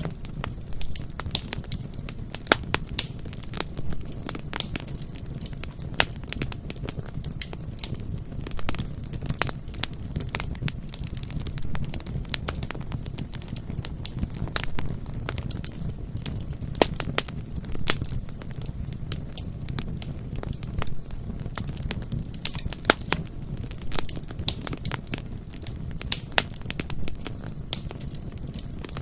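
Bonfire burning: a steady low rumble of flames with frequent sharp, irregular crackles and pops from the burning wood.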